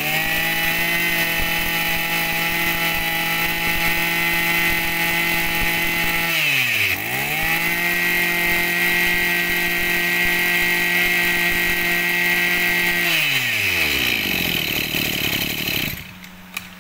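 A Maruyama 23cc two-stroke brush cutter engine revved to full throttle and held there. It drops back for a moment about six and a half seconds in, revs up again and holds, then winds down toward idle from about thirteen seconds in.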